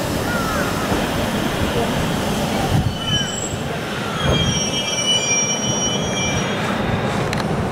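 JR Central 313 series electric train braking to a stop at a platform. Its brakes and wheels squeal in short gliding whines over the rumble of the running gear, then hold several steady high-pitched squeals for about three seconds before it halts.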